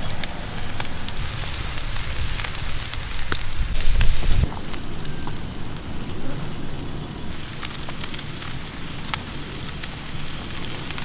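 Open cooking fire under a grilling fish, crackling with scattered sharp pops. A brief loud low rumble comes about four seconds in.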